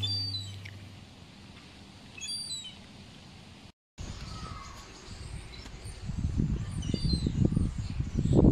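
Birds chirping: runs of short, high, falling notes at the start, a couple of seconds in, and again near the end. A low rumbling noise grows in the second half.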